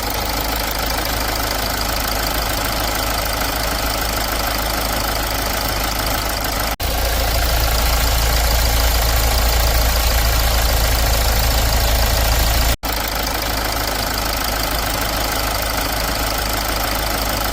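Hyundai Maxcruz diesel engine idling steadily, in three takes joined by abrupt cuts about 7 and 13 seconds in. The middle take is louder, with a stronger low hum.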